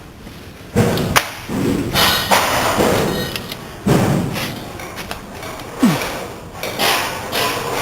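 Construction work: a string of loud thuds and bangs at irregular intervals, a few seconds apart or closer.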